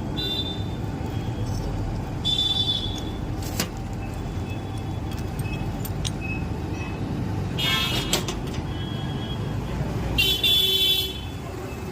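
Steady road-traffic rumble with three short high-pitched toots, about two, eight and ten seconds in, the last one loudest, plus a couple of sharp clicks.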